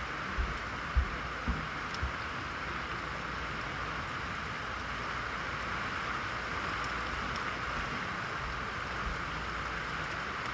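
Steady heavy rain during a thunderstorm, an even hiss throughout. A few short low thumps sound in the first two seconds.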